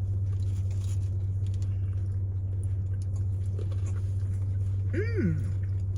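Steady low hum inside a car, with soft clicks and rustles from people eating fast food, and one short falling vocal sound about five seconds in.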